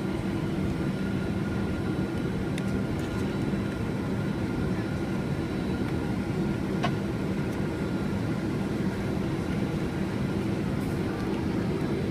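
Boeing 767-400's GE CF6 turbofans running at low taxi thrust, heard inside the cabin as a steady low rumble with a faint steady whine on top. A single sharp click about seven seconds in.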